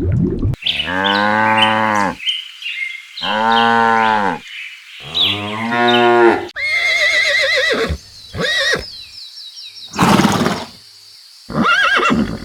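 Cow mooing three times, each low call lasting about a second and falling in pitch at its end. The moos are followed by several shorter, higher warbling calls and a brief burst of noise.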